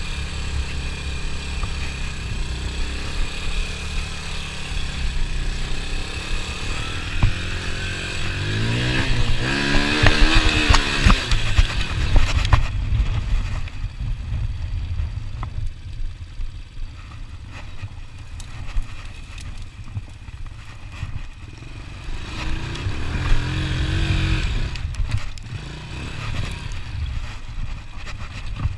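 Honda TRX 90 quad's small single-cylinder four-stroke engine running under a rider. It revs up and back down about ten seconds in, runs lower for a while, then revs up again briefly later on.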